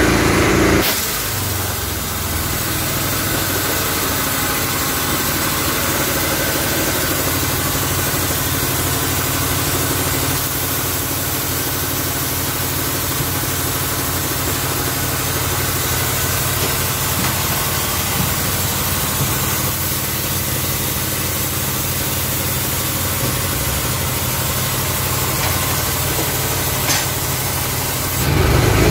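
An engine idling steadily, an even low hum that holds without change, with a faint click near the end.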